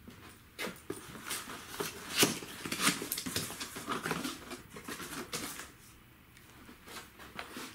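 Cardboard box flaps being pulled open by hand: an irregular run of scrapes, rustles and sharp taps of cardboard, easing off after about five seconds with a few last taps.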